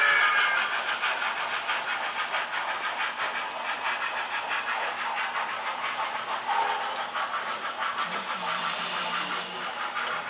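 Sound-equipped model steam locomotive running, with a fast, even chuff. A whistle note dies away right at the start.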